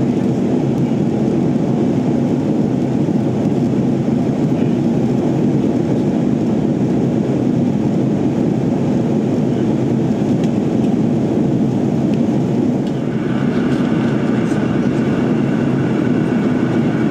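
Airbus A330-300 cabin noise in flight: the steady, loud rush of engines and airflow heard through the fuselage. About thirteen seconds in, a faint higher steady whine joins.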